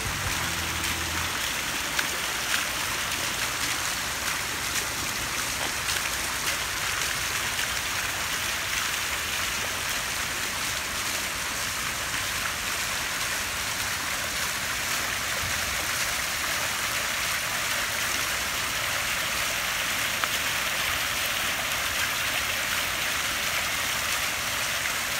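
A fountain of stacked-stone urns, water bubbling from their tops and spilling down their sides into the basins and rocks below, making a steady splashing rush.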